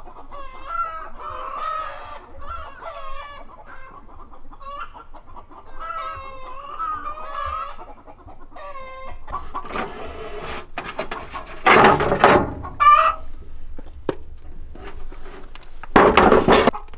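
Chickens clucking and calling in their coop as they settle for the night, with wavering calls repeating through the first half. Later come two loud bursts of rustling noise, about 12 and 16 seconds in, with a squawk just after the first.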